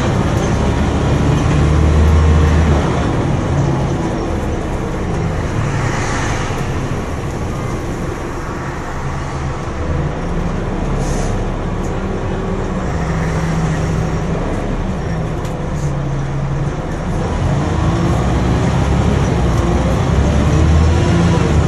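Scania OmniDekka double-decker bus on the move, heard from inside on the upper deck: the diesel engine drones over a steady rumble of road noise. The engine note shifts up and down as the bus changes speed, loudest about two seconds in and again near the end.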